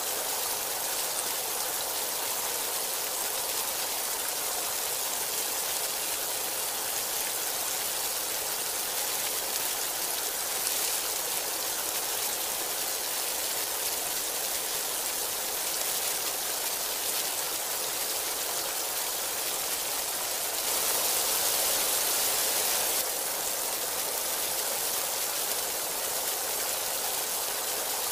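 Heavy rain pouring steadily, a dense even hiss of falling water, growing louder for about two seconds about three-quarters of the way through.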